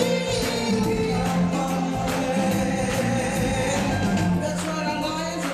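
Stage-show music: a choir of voices singing held notes over rhythmic drums and percussion.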